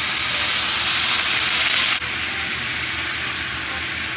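Water poured into a hot stainless pan of butter, onion and black pepper, hitting the fat with a loud, steady hiss. About two seconds in the hiss drops sharply to a lower sizzle as the sauce bubbles and is stirred with a wooden spatula.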